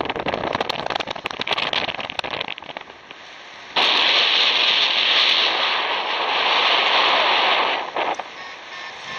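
Wind buffeting a camera microphone in flight under a paraglider: irregular crackling gusts at first, then about four seconds in a sudden loud, steady rush of air that cuts off abruptly about a second before the end.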